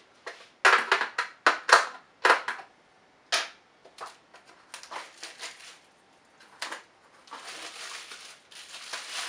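Plastic wrapping around a spool of 3D-printer filament being opened and crinkled by hand: a run of sharp crackles in the first few seconds, then a steadier rustling near the end.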